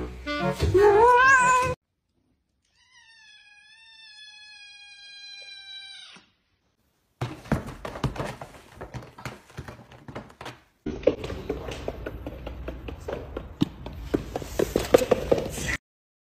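A domestic cat meowing loudly, its pitch rising and falling, for about the first two seconds, followed after a pause by a long, thin, wavering high tone. Then come irregular soft knocks and scuffles as a cat paws around inside a felt cat-cave bed, and after that a steady hiss with rustling and bumps.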